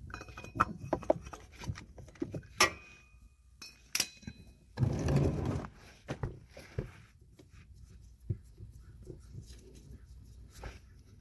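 Scattered metallic clinks and knocks of an oil filter cap wrench being fitted and worked on a Toyota RAV4's oil filter housing cap, with a denser noise lasting about a second around five seconds in.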